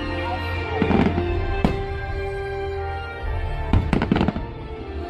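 Fireworks going off over the show's music soundtrack: several sharp bangs, three in quick succession near the end, over steady sustained music.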